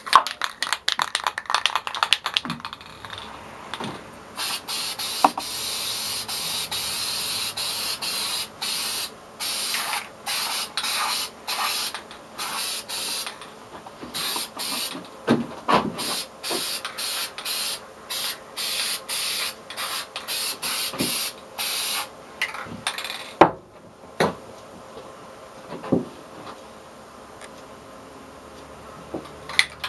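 Aerosol can of Krylon Fusion gloss brown spray paint being sprayed onto wood in many short hissing bursts with brief pauses between them. A quick rattling comes before the spraying begins, and a few light knocks follow once it stops.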